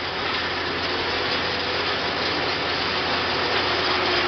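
Allis-Chalmers 7000 tractor's diesel engine running steadily, heard from inside the cab, with the noise of its exhaust stack coming through.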